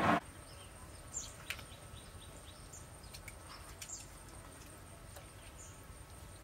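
A woven basket set down on a wooden chopping block with a thump and rustle right at the start. After it comes quiet outdoor ambience: birds giving short high chirps now and then over a steady high whine, with a few faint small clicks.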